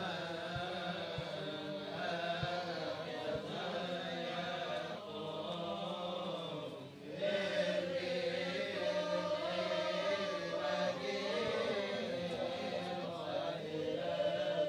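Slow Coptic Orthodox liturgical chant sung by men's voices, with a short break about seven seconds in.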